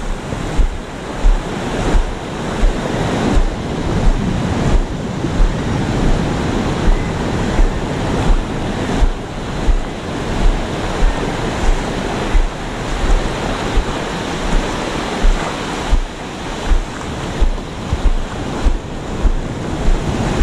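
Surf breaking on a sandy beach and wind buffeting the microphone, with regular low thumps about one and a half times a second from footsteps walking along the wet sand.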